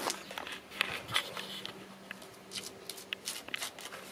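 A hand scraper scratching and ticking against cracked, crumbling concrete in short irregular strokes, over a faint steady hum.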